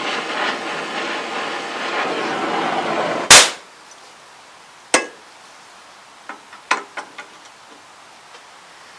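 A heating torch hissing steadily on the rusted bolt, then cutting off with a loud sharp bang about three seconds in. A sharp metallic knock follows a couple of seconds later, then a few light clinks of metal.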